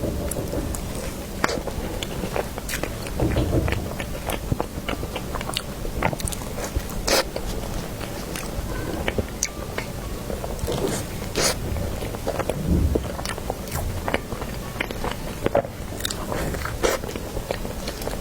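Close-miked eating sounds: biting into and chewing soft cream cake, with many wet mouth clicks and smacks.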